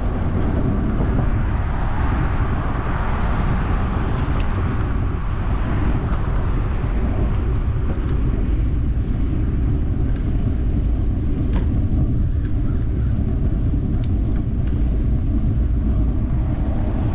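Wind rushing over a GoPro's microphone while riding, a steady rumbling buffet with a few faint clicks.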